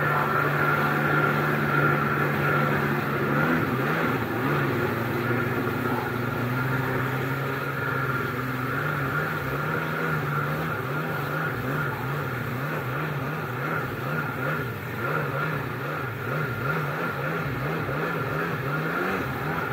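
1998 Kawasaki SXi Pro stand-up jet ski's two-stroke twin engine running under way. Its note is steady at first, then from a few seconds in it rises and falls quickly and repeatedly, over the rush of water spray.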